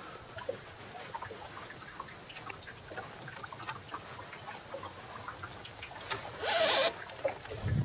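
Water lapping and trickling against the hull of a small sailboat under way, with scattered small clicks and one brief louder swish about six and a half seconds in.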